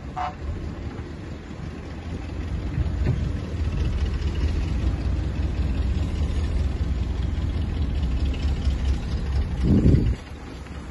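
Heavy diesel earthmoving machine running with a steady low engine rumble that grows louder about two and a half seconds in. A loud low thud comes near the end, and the sound then cuts off suddenly.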